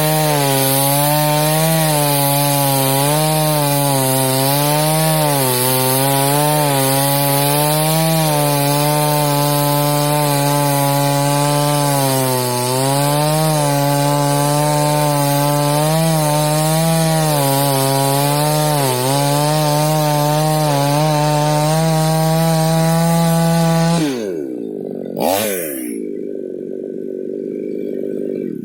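Two-stroke chainsaw running at high revs while cutting through a fallen rubber tree trunk, its pitch wavering and dipping as the chain bites into the wood. About 24 seconds in the throttle is released and the engine winds down, with one short rev, to a lower idle.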